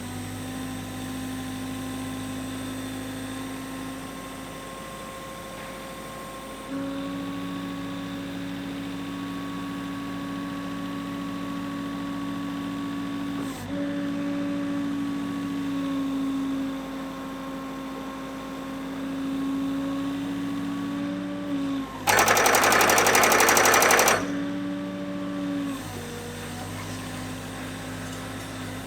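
MGI Tonker 830 piling rig's engine and hydraulics running steadily, the note changing several times as the rig is worked. About two-thirds of the way through, the pile-driving hammer strikes rapidly for about two seconds, by far the loudest sound, then the rig goes back to running.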